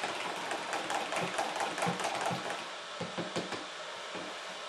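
A fork stirring yoghurt powder into water inside a plastic Easiyo jar, a quick run of small irregular clicks and taps against the jar's wall that thins out toward the end.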